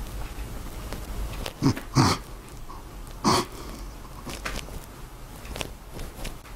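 A man weeping: a few short, choked sobs, the loudest about two seconds in and again a little after three seconds, then fainter sniffing and breaths.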